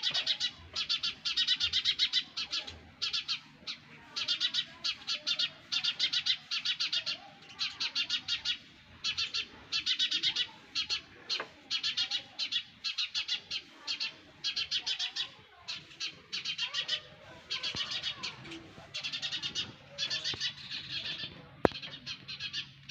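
Sparrow nestlings calling in the nest: bursts of rapid, high chirping, each under about a second long, repeating again and again with short gaps. One sharp click near the end.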